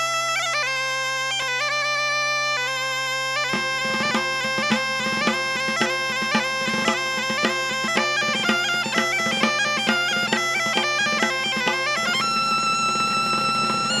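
Background music led by a bagpipe: a melody over a steady drone. About three and a half seconds in, a drum joins with a regular beat of about two strokes a second.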